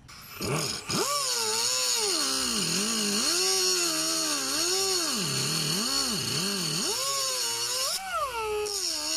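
Handheld power cutting tool slicing through the steel brake-line bracket tab on a car strut. The motor spins up about half a second in, then its pitch sags and recovers again and again as the wheel is pressed into the metal, over a steady high grinding hiss.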